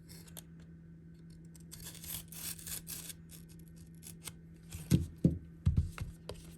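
A cardboard cigar box being handled and pried open: rustling and scraping with scattered clicks, then three or four dull thumps about five seconds in.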